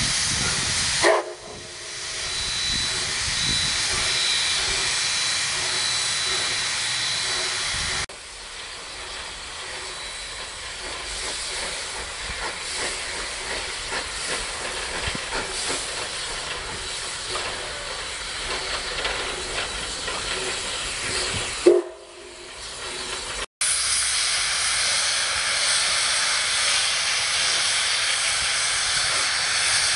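Steam locomotive venting steam: a steady, loud hiss that changes abruptly at several cuts. There are brief pitched blasts about a second in and again about 22 seconds in.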